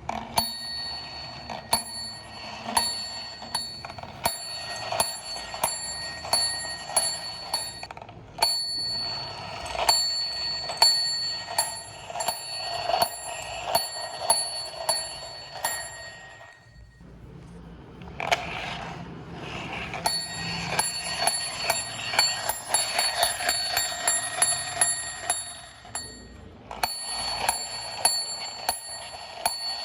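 Geared toy mini school bus running, a small bell on it dinging over and over, about two dings a second, over the steady rattle of its mechanism. It stops briefly a few times.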